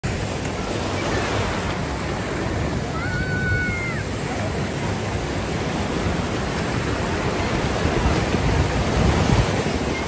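Sea surf breaking and washing up the beach in a steady rush, swelling a little near the end. A brief distant call sounds over it about three seconds in.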